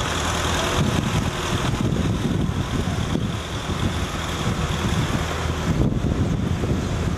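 Street noise: a steady rumble of road traffic, with wind buffeting the microphone.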